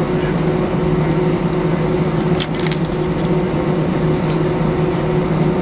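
Airbus A320 cabin noise heard from a window seat: the jet engines and airflow make a steady, even hum with two constant tones. A few brief clicks or rattles come about two and a half seconds in.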